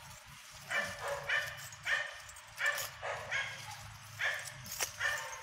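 A dog trapped in a flooded drain hole yelps in distress, a run of about eight short, high cries in quick succession.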